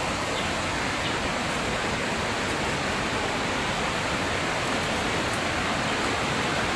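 Steady rushing of river water: an even, unbroken hiss with no separate splashes or changes.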